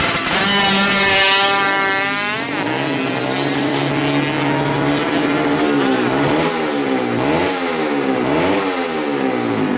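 Modified 116cc two-stroke Yamaha F1ZR drag bike engine at full throttle as the bike launches and accelerates away. The pitch climbs steeply, drops sharply at a gear change about two and a half seconds in, then rises and falls again at further shifts later on.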